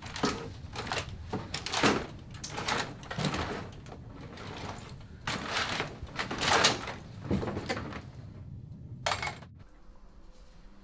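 A string of irregular scrapes and knocks as objects and furniture are handled and moved about, over a low steady hum that drops away about a second before the end.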